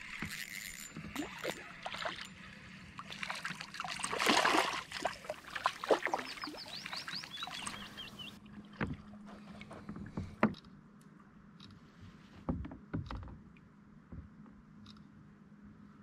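Water splashing and sloshing against a fishing kayak's hull, busiest over the first half, with scattered sharp knocks of gear against the hull.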